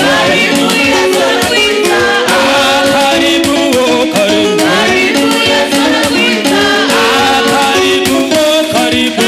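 Gospel worship music: voices singing a melody over a band with a steady beat and shaker percussion.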